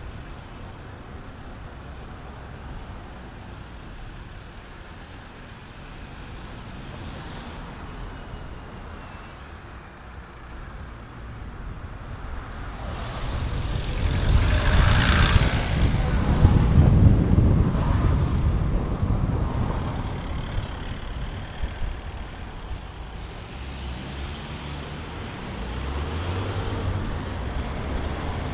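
Steady low rumble of engine and tyre noise heard inside a moving car in traffic. It grows louder for several seconds about halfway through, then settles back.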